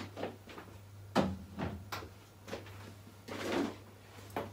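SMEG fridge door being opened and shut, with a few separate knocks and rustles as something is set inside, the sharpest about a second in, over a steady low hum.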